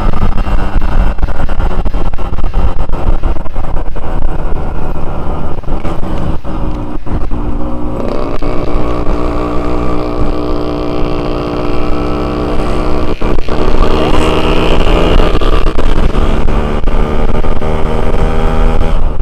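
Yamaha RX-King's two-stroke single-cylinder engine running under way, with a heavy rumble of wind on the microphone. About halfway through, the engine note comes out clearly and climbs as the bike accelerates.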